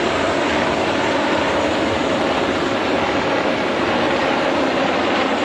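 A formation of helicopters, among them a KUH-1 Surion and Black Hawks, flying in: steady, loud rotor and turbine noise that holds an even level throughout.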